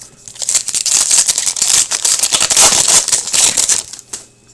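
A hockey card pack's wrapper being torn open and crinkled, a dense crackling rustle that starts about half a second in and stops about four seconds in.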